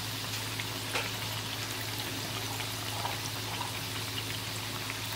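Raw green banana balls deep-frying in hot oil in a wok: a steady sizzle and bubbling, with scattered small crackles over a steady low hum.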